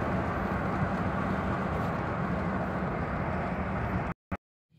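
Steady road and engine noise inside the cabin of a moving car, a low even noise. It cuts off abruptly about four seconds in.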